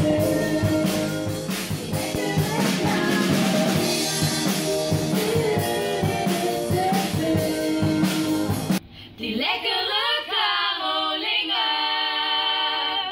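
A pop song with a steady drum beat and singing. About nine seconds in the backing drops out, and a small group of women sings on together unaccompanied.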